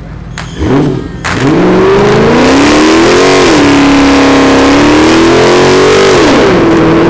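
Dodge Challenger's V8 engine revving, two short blips and then held at high revs through a burnout, with the rear tyres spinning on the pavement. The revs sag and climb again near the end.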